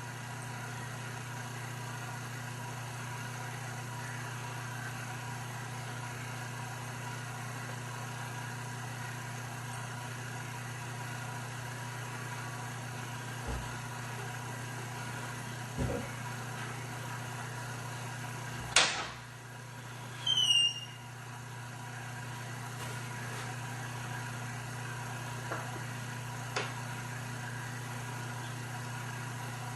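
Steady low electrical-style hum, with a loud sharp knock about two-thirds of the way in. A second later comes a short, high squeak that falls in pitch, and a few faint knocks are heard before and after.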